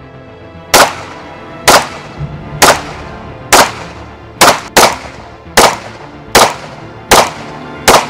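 Pistol shots from a 9mm SIG P365 on a Macro frame firing 124-grain +P Speer Gold Dot, about one a second, ten in all, with two close together about halfway through. Background music runs underneath.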